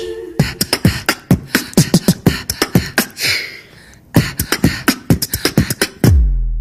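Beatboxing: a fast pattern of mouth-made kicks, clicks and snare hits, about five or six a second, with a short lull about four seconds in. Near the end it drops into a deep falling bass boom that holds low.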